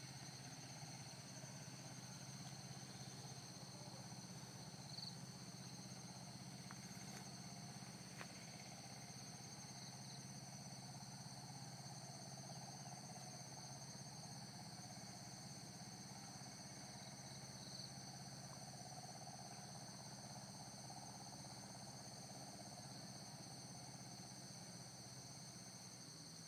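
Faint, steady insect chorus: constant high-pitched trilling that does not let up, over a low steady hum, with a few tiny chirps and clicks.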